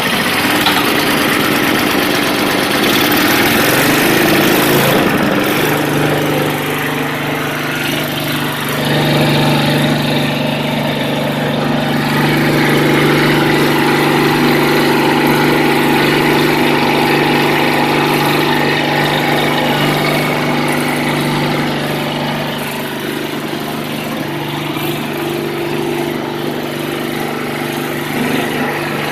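Craftsman 5 hp two-stage snowblower's small Tecumseh engine running just after a choked cold pull start, unsettled for the first few seconds and then settling into a steady run.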